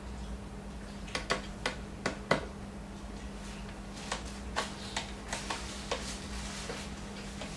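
Irregular small clicks and ticks of a screwdriver working a screw at the terminal end of a Kyocera KM-2550 copier's heat roller (fuser) assembly, a cluster of sharper clicks in the first few seconds then scattered ones, over a low steady hum.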